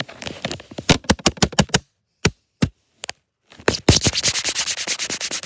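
Rapid knocks and scratches of hands handling the recording device right against its microphone. A quick flurry comes first, then two single knocks, then a faster, even run of about ten knocks a second near the end.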